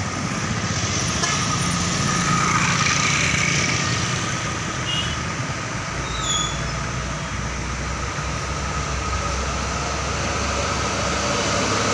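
Road traffic: cargo trucks and motorcycles driving past, their engines giving a steady rumble.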